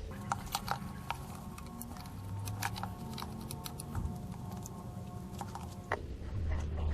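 Scattered light clicks and taps of plastic electrical connector plugs being handled and pushed onto the ignition coil packs, over faint background music.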